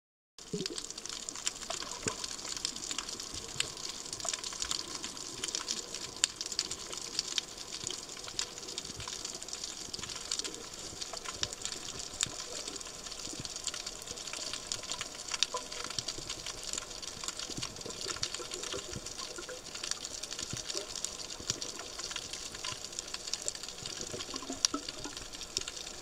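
Underwater coral-reef ambience on a diver's camera, starting abruptly about half a second in: a steady hiss crackling with many sharp clicks.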